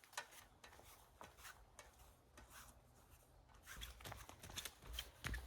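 Near silence: faint scattered clicks and light rustles, with low rumbles and a few louder clicks from about four seconds in.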